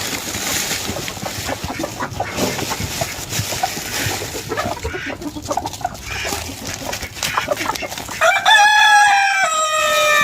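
Chickens clucking and calling in a poultry flock, then a rooster crows loudly near the end: one long crow, about two seconds, that drops in pitch as it ends.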